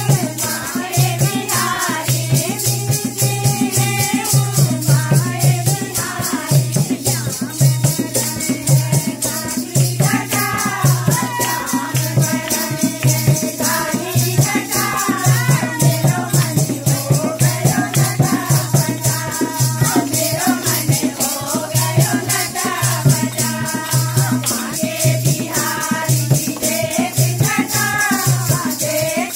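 A Hindi devotional bhajan sung by voices over a steady, quick beat of a drum and rattling percussion, with hand clapping.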